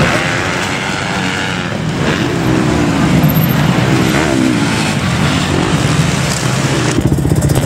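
Motocross bike engines running hard, revving up and down as a rider accelerates out of a corner and along the dirt track.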